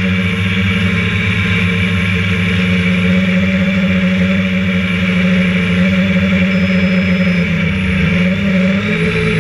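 Electric motors and propellers of a radio-controlled multicopter droning steadily, heard from on board; the pitch shifts slightly about eight seconds in.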